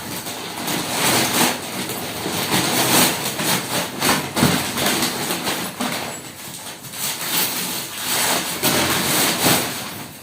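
Packaging rustling and crinkling continuously, with many small irregular crackles, as items are dug out of an opened parcel.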